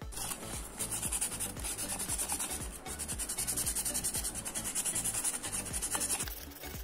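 Fine sandpaper rubbed quickly back and forth over a small red toy Jeep part, sanding it down for repainting: a steady hissing scratch of rapid strokes that stops about six seconds in. Faint background music with a beat runs underneath.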